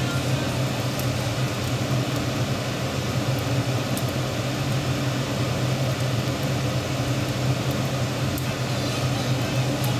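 A steady low machine hum and whir, like a motor running, with no change in pitch or level.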